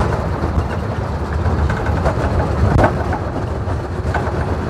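Steady engine and road rumble inside the cabin of a moving bus, with a few short knocks from the cabin about two, three and four seconds in.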